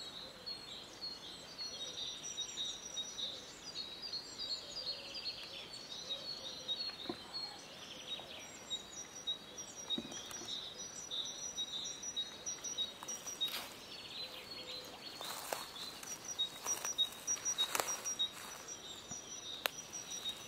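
Chorus of several small songbirds chirping and singing, with quick repeated high notes overlapping throughout. A few short sharp clicks sound in the second half.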